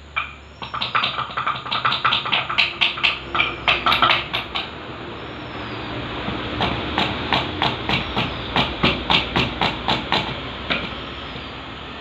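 Rapid metallic strikes, about five a second, in two runs of roughly four seconds each with a short pause between.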